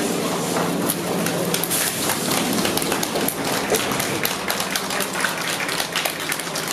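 A dense, irregular patter of many camera shutters clicking at once, over crowd murmur and a low steady hum.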